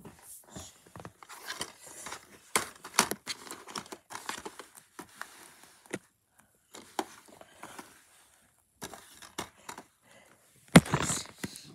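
Plastic DVD cases being slid out of a cardboard box-set sleeve and laid down on carpet: scattered rustling, scraping and light clicks, with a louder knock near the end.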